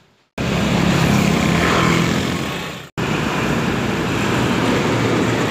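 Road traffic passing close by: steady vehicle engine and tyre noise that starts suddenly and drops out for an instant about three seconds in.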